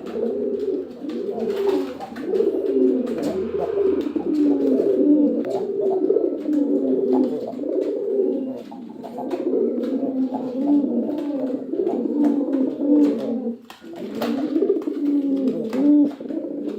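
Domestic pigeons cooing steadily, low rolling coos overlapping one another with scarcely a break, with scattered faint clicks.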